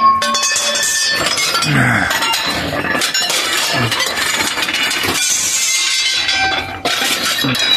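Metal parts clinking and clattering irregularly as they are rummaged through and shifted about.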